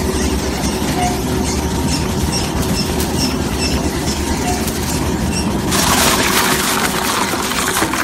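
Model 1000 twin-shaft shredder running, its drive humming steadily and its cutter shafts turning with a regular light clicking about twice a second. About six seconds in, a harsher hissing grind joins in for the last two seconds.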